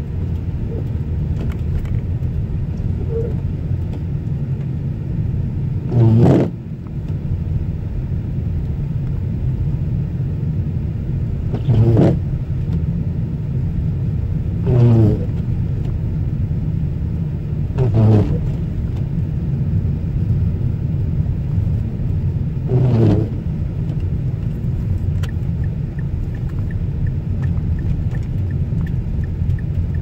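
Inside a car driving on a snow-covered road: steady rumble of tyres and engine, with the windshield wipers sweeping every few seconds. Five times the blade makes a short, pitched rubbing sound on the glass, louder than the rumble.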